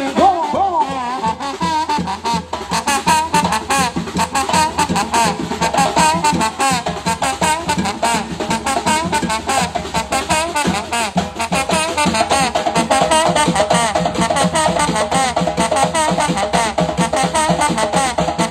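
Live batucada: a samba percussion band drumming a fast, steady rhythm, with a wavering melody line playing over the drums.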